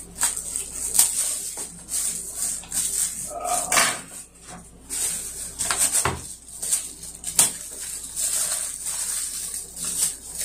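Plastic packaging bags crinkling and plastic shelf spacers clicking against each other as they are handled, in quick irregular crackles. A brief pitched sound comes about four seconds in and a dull thump about six seconds in.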